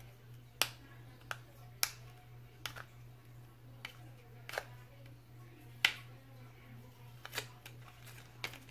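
Sharp plastic clicks and taps, about eight at irregular intervals, from a new mascara tube being handled and worked open with some difficulty. A low steady hum runs underneath.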